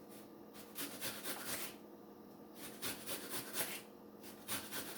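Faint rustling and small clicks of hands handling red onion pieces during pizza topping, in three short spells.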